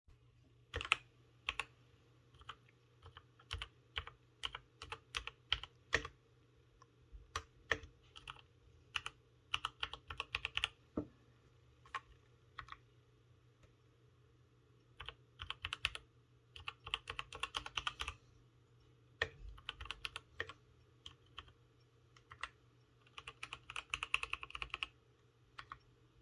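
Typing on a Keychron K8 mechanical keyboard. It starts with separate keystrokes about half a second apart, then breaks into quick runs of typing, with short pauses between the runs.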